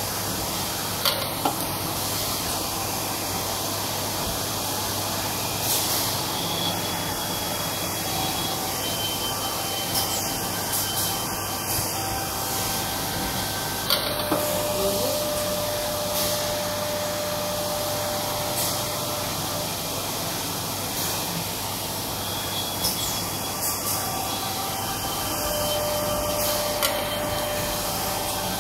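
Citizen A20 Swiss-type CNC lathe running a machining cycle behind its closed door: a steady machine hum and hiss with cutting oil spraying, broken by sharp clicks and short whining tones from the tool and spindle moves, the pattern repeating about every thirteen seconds.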